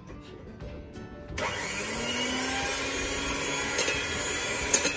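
Electric hand mixer switched on about a second and a half in, its pitch rising briefly as the motor spins up, then running steadily as the beaters whisk eggs.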